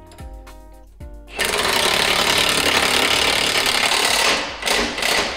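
Cordless impact wrench tightening a bolt into a Jeep's rear bumper: one run of about three seconds starting over a second in, then two short bursts near the end.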